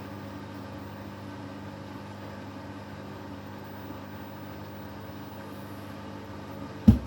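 Beko WTK104121W washing machine running steadily with an even motor hum, on an intermediate spin stage that it keeps failing to get up to speed. One loud thump near the end.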